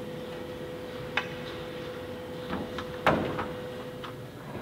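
Work noises in a hangar: a sharp click about a second in, a little clatter, then a louder knock about three seconds in, over a steady hum.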